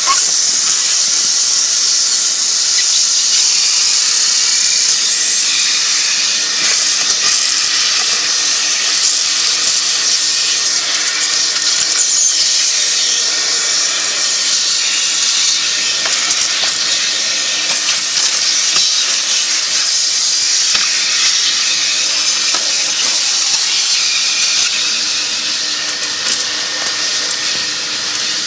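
A vacuum cleaner running steadily: an even, loud hiss of rushing air over a low motor hum, easing slightly near the end.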